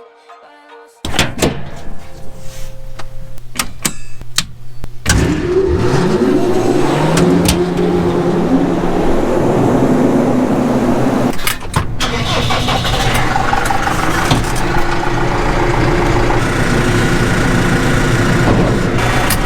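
Heavy diesel engine, likely the John Deere 9500 combine's: a low hum with clicking for a few seconds, then about five seconds in it rises in pitch as it revs up, and it runs steadily and loud.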